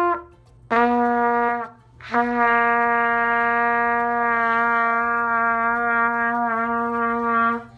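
Trumpet played with buzzing lips: a higher note ends right at the start, then a note lasting about a second, then the same lower note held steady for about five seconds.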